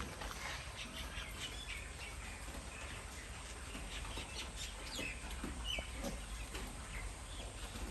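Faint, scattered short animal calls and chirps with light rustles, from the animals around the pig pens.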